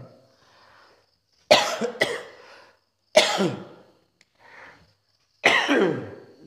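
A man coughing in hard fits: a double cough about a second and a half in, another cough about three seconds in, a faint one after it, and a last cough near the end.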